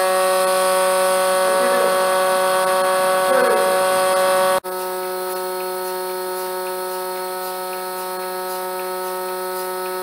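Electric vacuum pump of a portable bucket milking machine running with a steady whining hum. It breaks off for an instant about halfway through, then carries on a little quieter, with faint regular ticking.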